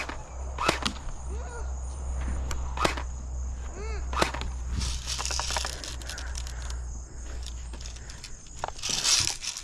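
A handful of sharp, separate clicks spread over several seconds, with two bursts of rustling, about halfway through and near the end, over a steady low rumble.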